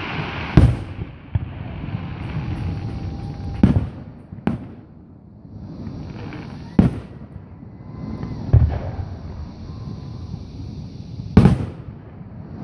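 Aerial firework shells bursting, a sharp boom every one to three seconds, about six in all, the loudest near the start and near the end.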